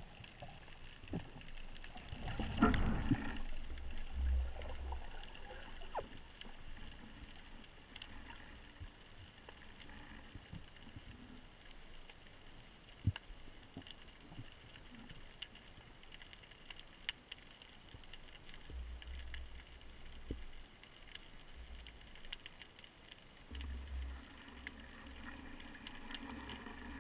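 Underwater ambience heard through a diving camera's housing: faint water noise with scattered sharp clicks. There is a louder burst of water noise about three seconds in, and a few short low rumbles.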